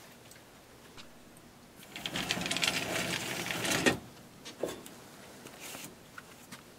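A steel filing cabinet drawer rolling open on its slides with a fast rattle for about two seconds, stopping with a clunk; a lighter knock follows, then soft rustling of the paper folders inside.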